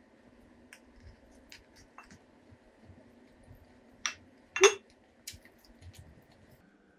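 Chopsticks and a spoon clinking against a ceramic bowl while eating, with two sharp knocks about four seconds in, the second the loudest, and small scattered clicks around them.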